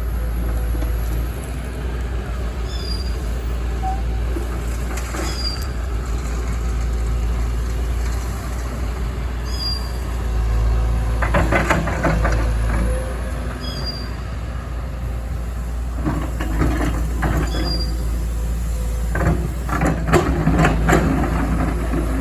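Excavator's diesel engine running with a steady deep rumble, with bursts of clanking and scraping from the bucket and machine around the middle and again near the end.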